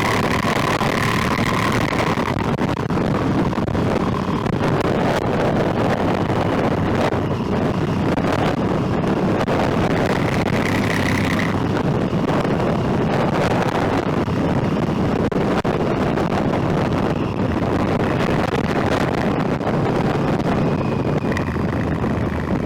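Motorcycle riding along at speed: steady wind rush over the microphone with the engine running underneath it.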